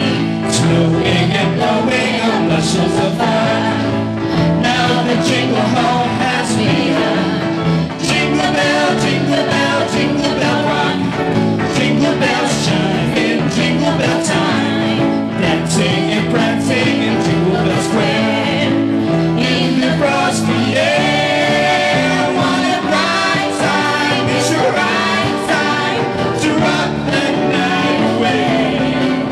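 Live pop band playing a Christmas song, with singers at microphones over drum kit, electric guitar and keyboard, with a steady beat.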